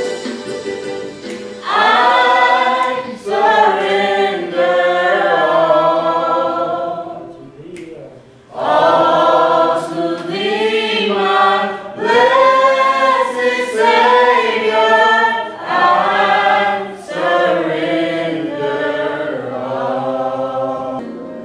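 A church praise team of several voices singing a gospel worship song into microphones, in long held phrases, with a short break for breath about eight seconds in.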